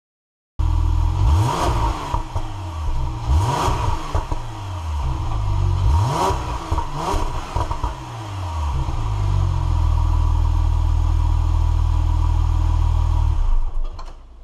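Porsche 911 Carrera 991.2's twin-turbo flat-six on its stock exhaust, revved four times in quick throttle blips in the first eight seconds, each rising and falling back, then settling to a steady idle. It comes in suddenly and fades just before the end.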